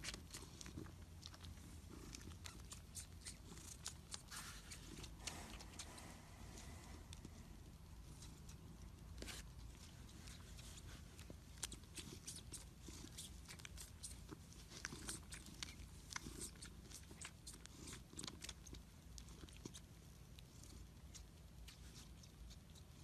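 Faint domestic cat purring steadily, with many small quick clicks of its tongue as it licks and grooms its paw.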